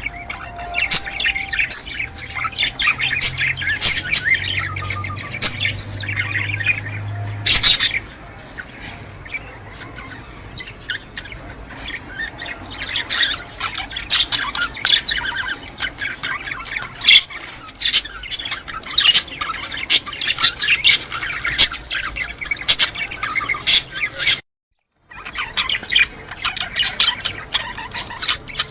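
A flock of small pet birds chirping and twittering, many quick high calls overlapping. The chatter thins for a few seconds after about eight seconds, then picks up again, and the sound cuts out for a moment near the end.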